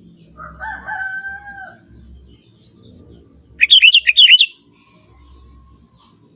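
Sooty-headed bulbul singing. There is a softer drawn-out whistled note about half a second in, then a loud burst of quick, bubbly notes a little past the middle.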